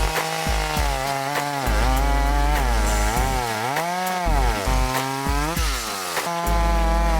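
Chainsaw running hard in a cut, its engine note dipping as it bogs under load and climbing back up, several times; the deepest dips come about halfway through and again a little later.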